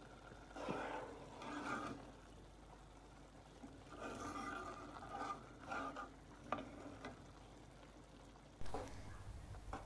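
Metal spoon stirring and scraping minced meat in a steel pot, in irregular strokes with one sharp clink, over a faint sizzle as the cooking water boils off.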